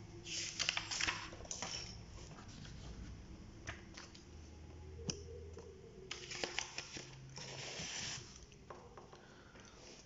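Sheets of paper rustling and sliding as they are handled, with a few small clicks and taps. There are two bursts of rustling, one near the start and a longer one a little after the middle.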